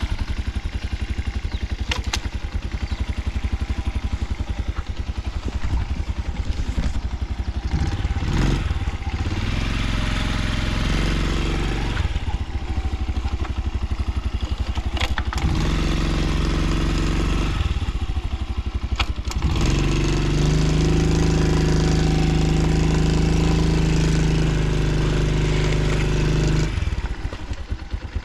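Honda Solo's small single-cylinder four-stroke engine idling with an even pulsing beat, then run up to higher revs three times, the last and longest about halfway through. A few short clicks come between the runs. It revs up cleanly with no odd noises.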